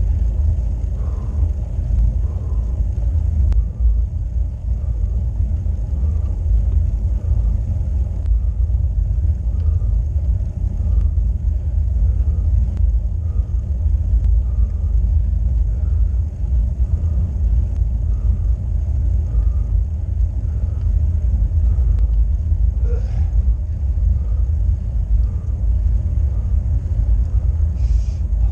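Steady low rumble of wind buffeting an action camera's microphone on a road bike climbing slowly on asphalt, with faint light ticks about every two-thirds of a second.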